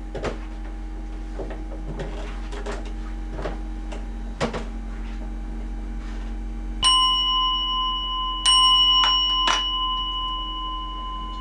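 Small Buddhist altar bowl bell (rin) struck twice, about a second and a half apart, each strike ringing on in a long, bright, steady tone with several overtones. Soft handling clicks come before the bell, and a couple of sharp clicks follow the second strike.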